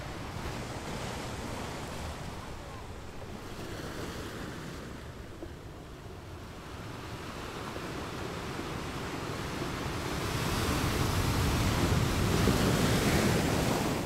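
Underwater water noise: a steady rushing hiss with no distinct events, growing louder over the last four seconds.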